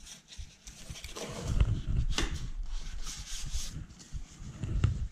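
A cardboard packing strip being worked off a mountain bike's coil rear shock: rustling and scraping cardboard with a few sharp knocks.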